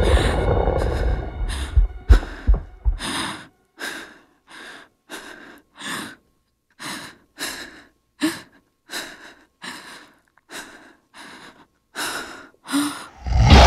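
Frightened, rapid breathing of a person: short gasping breaths, about two a second, with a low rumble fading out over the first few seconds. A sudden loud noise breaks in at the very end.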